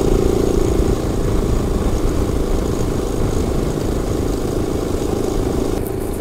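KTM 500 EXC-F single-cylinder dirt bike engine running steadily at cruising speed, with wind rushing past.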